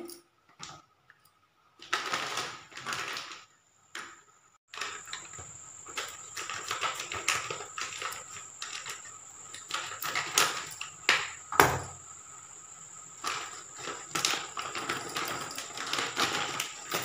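Plastic packet of instant dhokla mix crackling and rustling as it is handled and cut open, with scattered sharp clicks. A thin, steady high tone runs underneath from about five seconds in.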